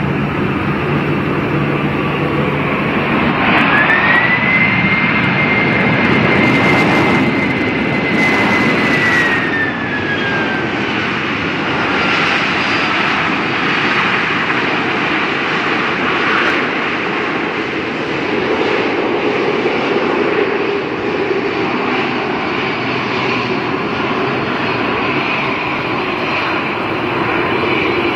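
Jet airliner's engines running loud as it passes. A high whine comes in a few seconds in, holds, then slides down in pitch around ten seconds in, over a steady roar.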